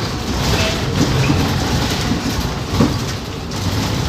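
Cabin noise inside a Marcopolo Attivi Integral battery-electric bus on the move: a steady low road rumble with the body and fittings rattling and knocking, one sharper knock a little under three seconds in. No diesel engine is running.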